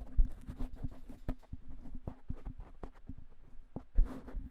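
Handling noise as a foam windscreen is fitted over a BM800 USB condenser microphone: rubbing and irregular knocks and bumps picked up directly by the mic, with two louder bumps just after the start and near the end, over a faint steady hum.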